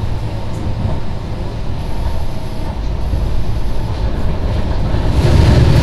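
Running noise of a Tobu 50070 series electric train: a steady low rumble of wheels on rail, growing louder near the end.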